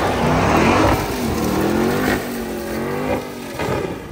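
Ram TRX's supercharged V8 revving up and down as the truck's tyres spin on loose gravel, getting fainter near the end.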